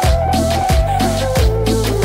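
Background music with a steady electronic drum beat and bass line under a held melody note, which steps down in pitch about two-thirds of the way through.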